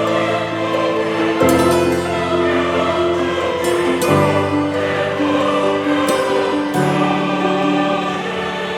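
Background music sung by a choir, holding long chords that change every two to three seconds.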